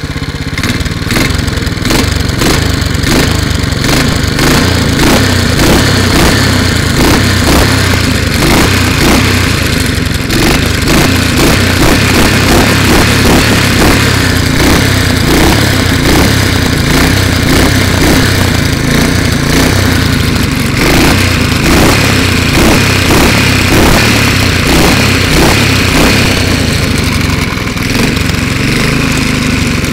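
Walk-behind lawn mower's small single-cylinder engine running steadily at a constant speed. It runs pretty good after sitting unstarted for about five years.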